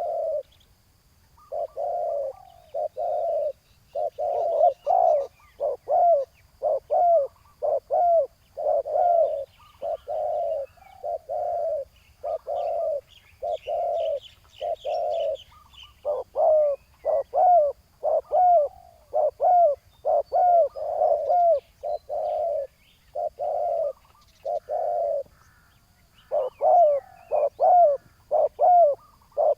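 Spotted doves cooing: a long run of low coo notes, about one or two a second, with short pauses. Faint high chirps from small birds come through around the middle.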